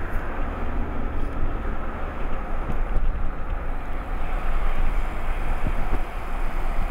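Wind rushing over the microphone of a camera in a moving vehicle, with steady low road rumble; a continuous, unbroken noise.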